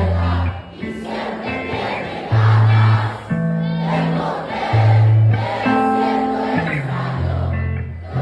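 Live band music: a man singing into a microphone over electric guitar and bass, with many voices singing along. Long bass notes shift about every second beneath the singing.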